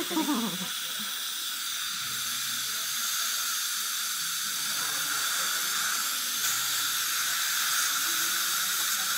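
Dental suction tube hissing steadily as it draws air from the patient's mouth. A brief murmur of a voice comes right at the start.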